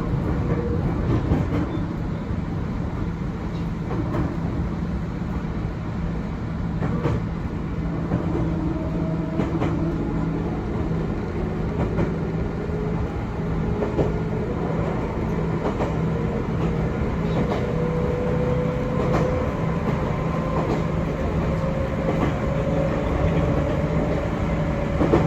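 Chichibu Railway 6000 series electric train running, heard from inside the car: steady running noise with a faint motor whine that slowly rises in pitch as it gathers speed, and scattered clicks of the wheels over rail joints.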